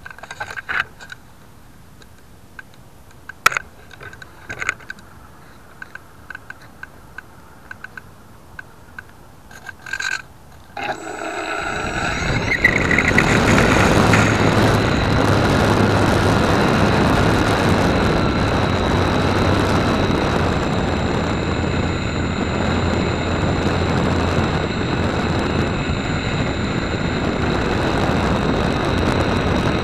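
A few handling clicks and knocks. Then, about eleven seconds in, a small RC model airplane's motor spins up and runs steadily at full throttle, its propeller noise mixed with wind rush on the onboard camera, through the takeoff roll and climb-out.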